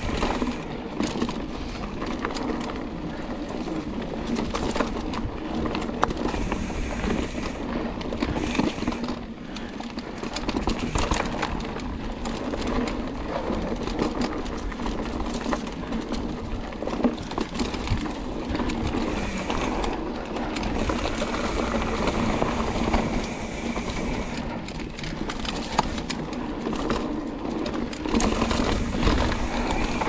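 Santa Cruz Hightower LT mountain bike riding a dirt singletrack: a steady rush of tyres rolling over dirt and leaves, with frequent small knocks and rattles from the bike over bumps and roots.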